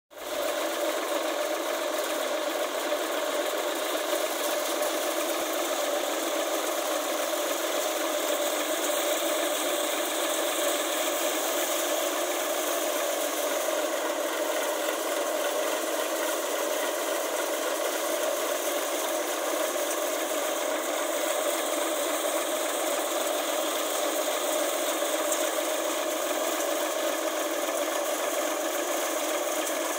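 Sonalika tractor engine driving a thresher, running steadily as dried chickpea plants are fed through. The engine and the thresher's drum and sieves make a continuous mechanical noise that does not let up.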